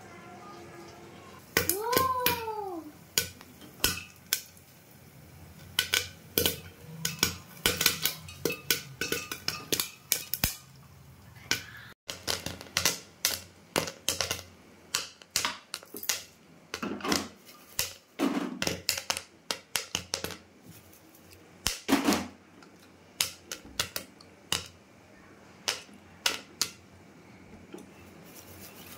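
Popcorn kernels popping in an aluminium pressure cooker: irregular sharp pops, some in quick clusters, others spaced out. A short squeak rises and falls about two seconds in.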